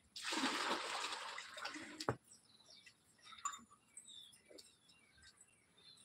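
Water splashing and rushing in a plastic bucket for about two seconds as a water buffalo drinks from it with its muzzle in the water, ending in a single sharp knock.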